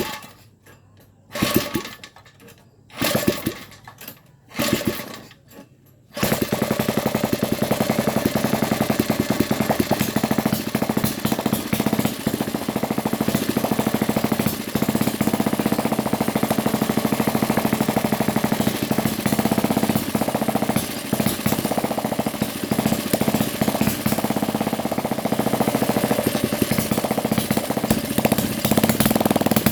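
Small engine being started: a few brief bursts, then it catches about six seconds in and keeps running with a rapid, even firing beat.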